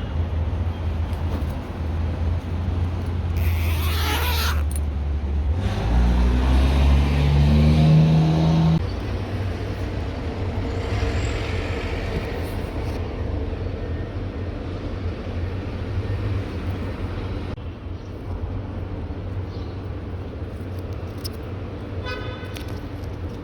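Road traffic with a steady low engine rumble. About six seconds in, a vehicle engine rises in pitch as it accelerates, which is the loudest part. Near the end there is a short pitched beep like a horn toot.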